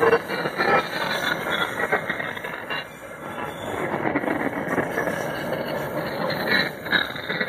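Empty iron-ore hopper wagons rolling past, their wheels clattering and knocking over the rail joints, with some wheel squeal.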